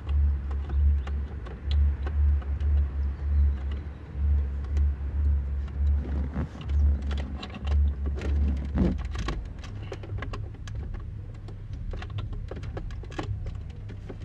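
Plastic clicks, knocks and rattles of the Subaru Forester's climate control panel and dash trim being handled and plugged back in, over a loud, uneven low rumble that settles into a steadier low hum about two-thirds of the way through.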